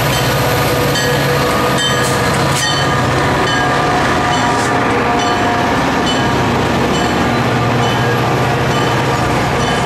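A Metra commuter train passing close by: the diesel locomotive goes past first, then the stainless-steel bilevel coaches roll by in a steady, loud rumble. There are two sharp clicks about two seconds in.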